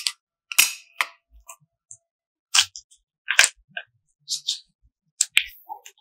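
Soft red clay being pulled out of its tub, stretched thin until it tears, and folded by hand, giving an irregular string of sharp pops and crackles. The loudest pop comes right at the start.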